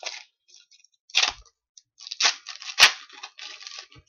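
Foil wrapper of a hockey card pack crinkling and tearing open in a run of short crackly bursts, with cards being handled and a sharp snap nearly three seconds in.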